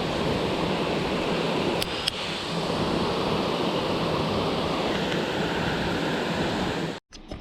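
Water pouring over a dam spillway: a steady, even rush of falling water, with two light clicks about two seconds in. It cuts off suddenly about seven seconds in, leaving a few faint clicks.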